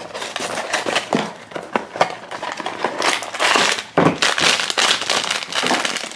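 Small cardboard blind box being opened by hand, with scattered clicks and scrapes, then a metallic foil blind bag crinkling continuously from about three seconds in as it is pulled out and handled.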